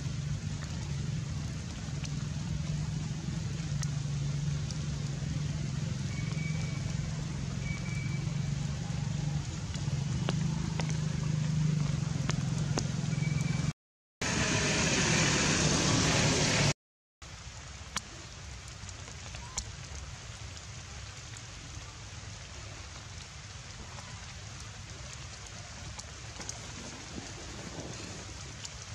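Steady rain falling, with scattered drips. A low hum runs under it for about the first half; then the sound cuts out twice briefly, with a louder rush of rain between the cuts, and the rain is quieter after them.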